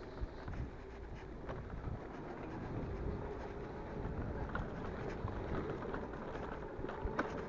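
Electric bike riding over a rough dirt lane: a low rumble of tyres and frame with scattered small rattles and clicks, under a faint steady whine from the bike's electric motor.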